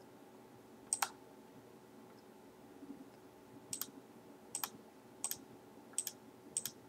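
Computer mouse clicking six times, each click a quick press and release, the first the loudest and the other five coming about every two-thirds of a second near the end. Under the clicks there is a faint steady hum.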